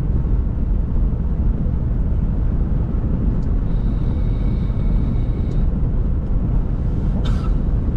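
Steady rumble of a car driving on a snow-covered road, heard from inside the cabin: tyre and road noise with the engine underneath. A faint high whine rides over it for a couple of seconds about halfway through.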